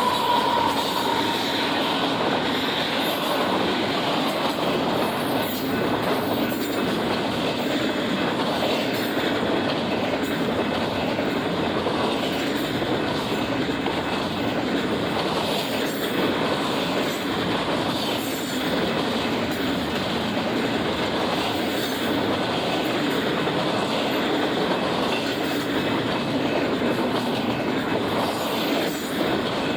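Union Pacific intermodal freight train rolling past steadily, its wheels clacking over the rail joints. The last of a horn note fades out in the first second or so.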